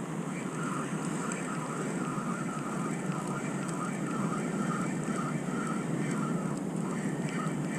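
Steady wind on the microphone and surf, with a faint whir that comes and goes from a spinning reel being cranked to retrieve line.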